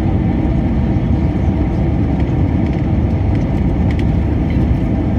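Steady rumble of an Airbus A320's passenger cabin in flight, the engine and airflow noise heard from a window seat on approach. A few faint ticks sound about two and four seconds in.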